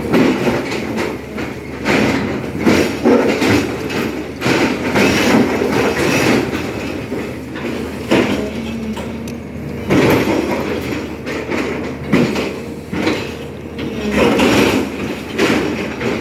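SANY excavator's diesel engine running steadily under load, with repeated heavy metallic clanking and scraping surges every second or two as it digs.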